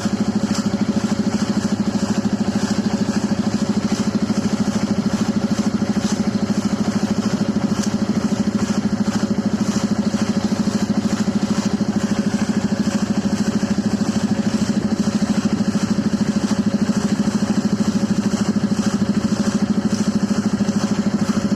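Engine-driven air compressor running steadily with a fast, even pulsing, used to flush out a water hand pump's tube well.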